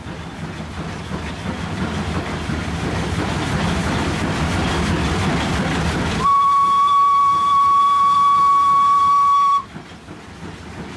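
The locomotive runs for about six seconds, the running noise rising. Its steam whistle then sounds one long, steady blast of about three seconds and cuts off, heard from the cab of the WP class 4-6-2 steam locomotive.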